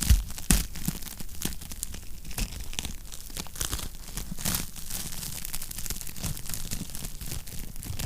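Wood fire crackling in a fireplace, with irregular pops and snaps over a low, steady rumble; two sharp, loud pops come just after the start.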